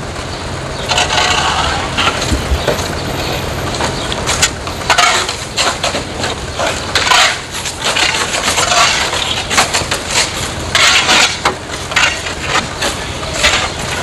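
Snow shovel digging and scraping through packed snow: a run of irregular crunching strokes over a steady low hum.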